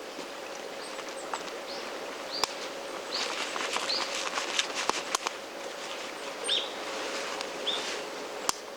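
Campfire crackling, with a few sharp pops and several short, rising bird chirps.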